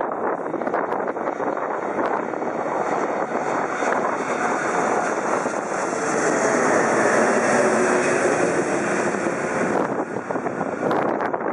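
Twin-engine jet airliner passing low overhead on final approach with gear down. Its engine and airframe noise builds to a peak past the middle with a faint whine sliding down in pitch, then eases off near the end.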